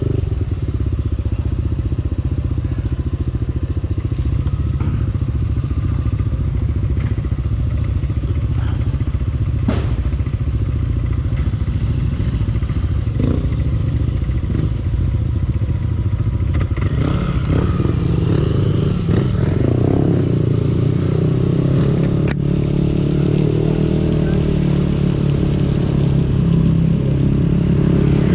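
Motorcycle engine running while riding, with a few sharp knocks; about two-thirds of the way through its note settles into a steadier hum.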